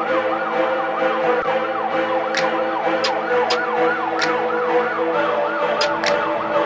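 A siren yelping in quick rising-and-falling sweeps, about three a second, over steady held tones, with scattered sharp ticks.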